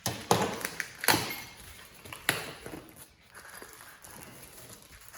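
Stiff plastic packaging crackling and snapping as it is torn open by hand: three sharp cracks in the first two and a half seconds, then softer rustling and scraping.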